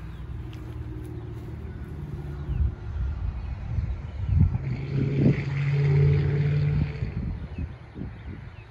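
A vehicle engine running steadily, growing louder over a few seconds and fading near the end, with a few knocks mixed in.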